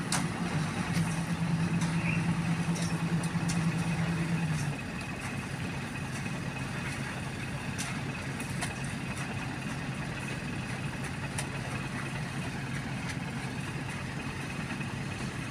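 Heavy diesel engines of a Sany excavator and a concrete mixer truck running at a concrete pour. A louder, higher engine note drops away about five seconds in, leaving a steady lower engine hum.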